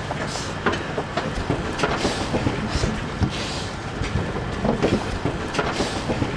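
Pigs crowded inside a metal livestock transport trailer: an irregular clatter of knocks and rattles as they shift and jostle against the sides. A few short hissing rushes come through close by.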